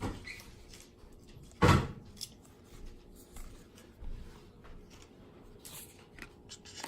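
Faint handling noises and small taps, with one loud, sharp thump a little under two seconds in.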